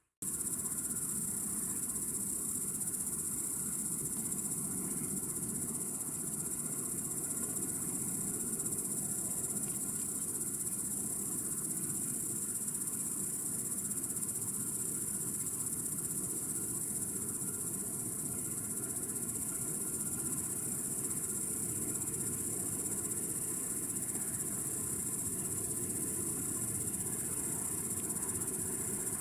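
Crickets chirring in one continuous high-pitched drone, over a steady low rumble.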